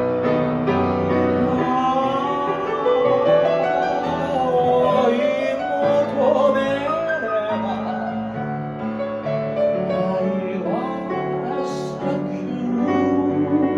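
Piano accompaniment under a singer holding long notes with vibrato: one held note wavers through the first half, and another rises in again near the end.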